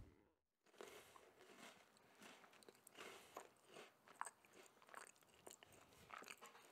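Faint crunching of a person chewing a mouthful of breakfast cereal, with many small scattered clicks.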